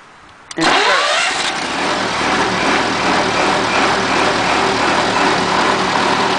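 Four-cylinder water-cooled Hercules ZXB engine of a 1943 M5 military generator, started on its electric starter with the choke on. A click about half a second in, then the engine catches at once and picks up speed within about a second, and settles into a steady run.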